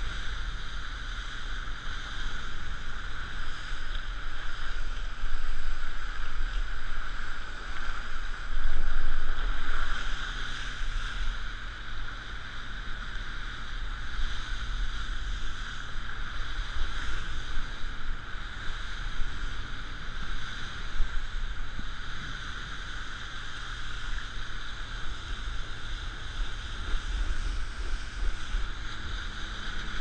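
Wind buffeting a rider-mounted camera's microphone and water rushing under a rider towed at speed behind a jet ski: a steady rushing noise with a low rumble, swelling louder around five and nine seconds in.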